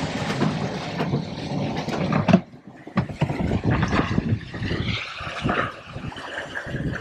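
Wind buffeting the microphone and water rushing in the wake of a sailboat under way, uneven and gusty, with one sharp knock about two and a half seconds in.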